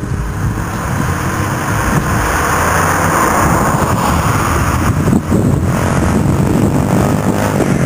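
A car passing close by on the road, its tyre and engine noise swelling to a peak about three to four seconds in and then drawing away, over a steady low rumble.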